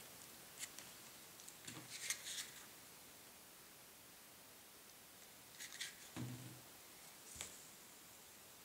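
Faint, scattered rustles and small clicks of hands handling fine dry root material and small tools on a tabletop, with near quiet between them.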